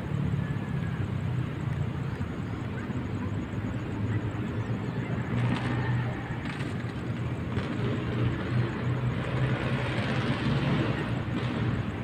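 Steady low hum of city traffic, with a hiss that swells twice, about five seconds in and again about nine seconds in.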